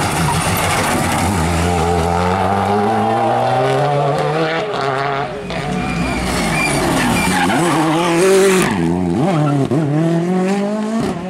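Two rally cars, a Renault Clio and then a Ford Fiesta, each taking a tight hairpin on a tarmac stage. The revs drop into the bend and climb under hard acceleration out of it. Near the end the pitch dips and rises quickly several times with the gear changes.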